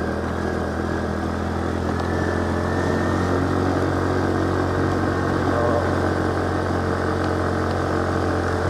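A vehicle's engine running steadily while driving along the road, giving a low, even hum.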